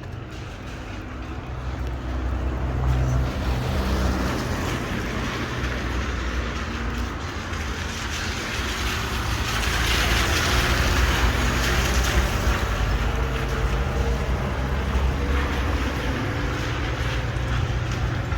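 Street traffic on a wet road: vehicle engines hum low and steadily, and the hiss of tyres on wet asphalt swells about halfway through as a vehicle passes, with wind on the microphone.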